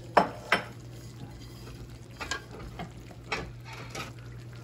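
Kitchen handling sounds: sharp clicks and knocks, two close together near the start and a few more spread out, as a paper towel of fried almonds is handled over the tagine. A steady low hum runs underneath.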